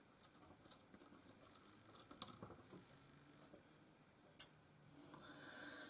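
Near silence with faint ticks and scrapes of a small screwdriver undoing a screw in a camcorder's plastic casing, with one sharper click about four and a half seconds in.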